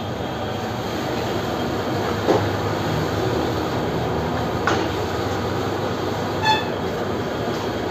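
Veg Manchurian being stir-fried in a wok over a high-flame gas burner: a steady roar of burner and frying, with flames flaring up from the wok. A metal ladle knocks against the wok about two seconds in and again near the middle, and a short ringing tone sounds later.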